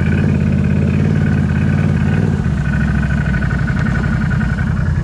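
Can-Am ATV engine running steadily at low throttle while the quad rolls through shallow muddy water, with a faint steady high whine above the engine note, which shifts slightly about two seconds in.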